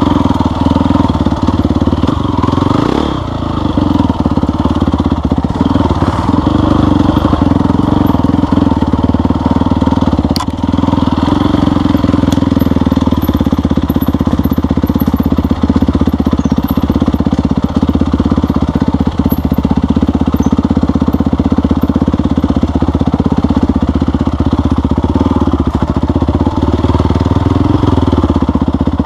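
Off-road vehicle engine running steadily and loudly on a trail ride, with a brief drop in level about three seconds in.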